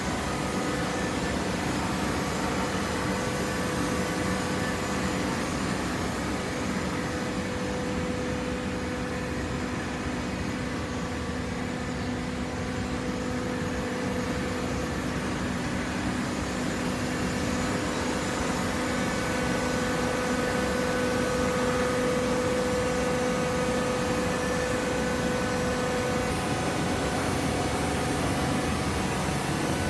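Hydraulic waste-paper baler running: a steady machine hum from its hydraulic pump and motor, with a few held tones, a little louder in the second half.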